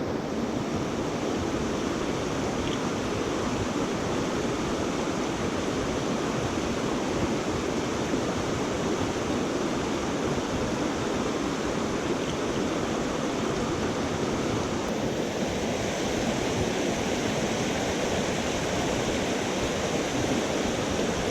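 Steady rush of creek water tumbling over rocks, an even, unbroken noise with no change.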